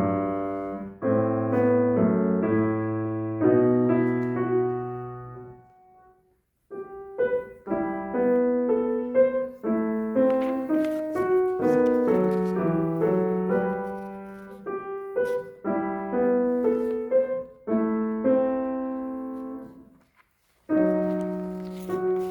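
Piano playing: a few held chords that die away to silence about six seconds in, then a longer passage of moving notes and chords, a brief stop near the end, and another chord.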